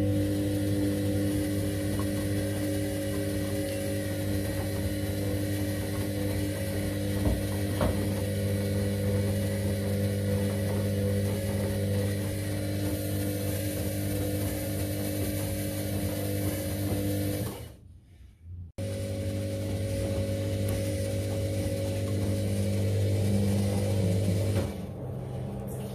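Candy CS1292D3 front-loading washing machine running through its 60 °C cotton main wash, its motor giving a steady hum. The sound breaks off briefly about two-thirds of the way through, and near the end the hum changes pitch as the spin starts.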